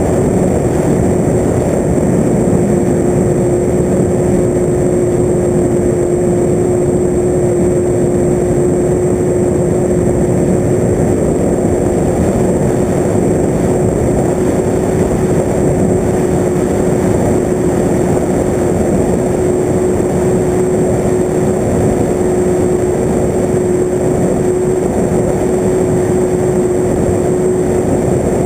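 Radio-controlled FPV aircraft's motor and propeller running at steady throttle: a constant hum at one pitch over a loud rushing noise, as heard from its onboard camera.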